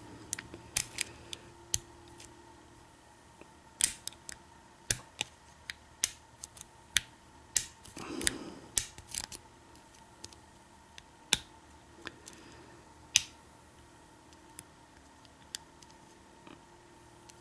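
Lock pick and tension wrench clicking against the pins and keyway of a Kwikset deadbolt cylinder as it is picked: irregular, sharp small metal clicks, one or two a second.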